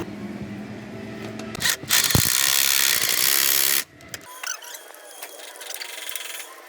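Workshop tool noise during a truck gearbox overhaul: a loud hiss lasting about two seconds starts about two seconds in and cuts off, followed by quieter light clicks of parts being handled.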